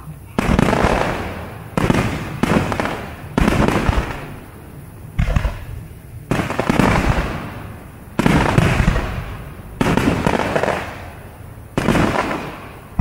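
Aerial firework shells bursting one after another: about nine loud booms, each fading away over a second or so before the next.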